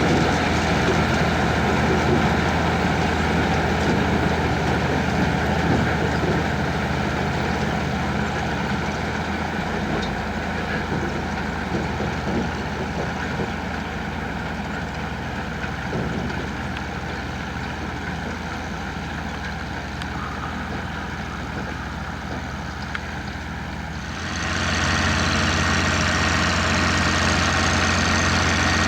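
Mercedes-Benz MB-Trac tractor's diesel engine running steadily while pulling potato-harvesting machinery. It gets gradually quieter, then becomes suddenly louder about three-quarters of the way through.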